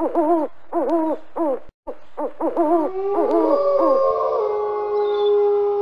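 Wolves yipping in short rising-and-falling calls, broken by a brief silence. From about three seconds in, several wolves howl together in long, held notes at different pitches.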